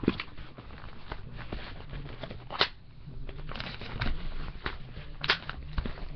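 Close rustling and irregular clicking of someone putting on a costume and mask, with two sharper snaps about two and a half and five seconds in.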